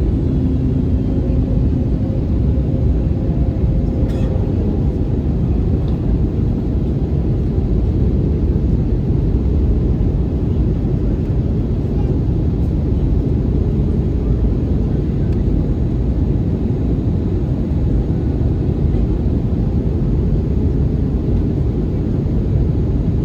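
Steady cabin noise inside an Airbus A320neo in flight: a loud, even low rumble of engines and airflow. A faint hum fades out in the first few seconds.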